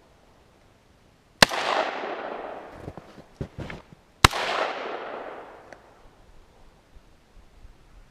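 Two rifle shots from a VZ 58 semi-automatic rifle, about three seconds apart, each followed by a long rolling echo, with a few faint clicks between them.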